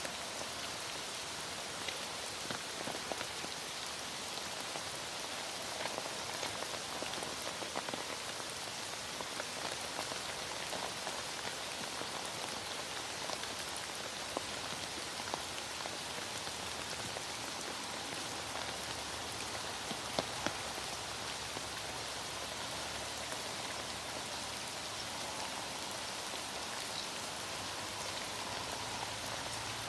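Heavy rain falling steadily, with individual drops ticking now and then, a couple of louder drops about twenty seconds in.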